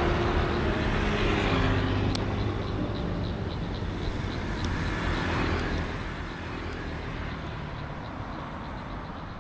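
Street traffic noise, a steady rush of passing vehicles with a faint regular ticking, slowly fading down.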